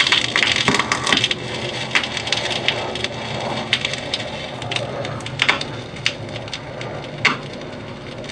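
Stylus of a Magnavox console record changer riding the lead-in groove of a vinyl record, heard through the console's speakers: a hiss of surface noise with scattered clicks and pops, louder in the first second and then settling, before the music begins.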